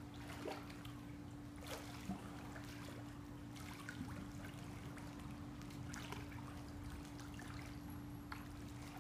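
Faint water sloshing and small irregular splashes as a swimmer floating on his back sculls with his hands to move backwards. A steady low hum runs underneath.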